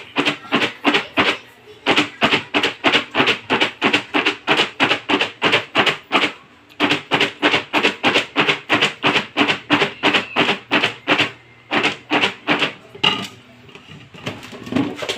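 Popcorn rattling inside a covered plastic container that is shaken back and forth, about four shakes a second, to coat the popcorn with honey butter seasoning powder. The shaking breaks off briefly twice and stops about two seconds before the end.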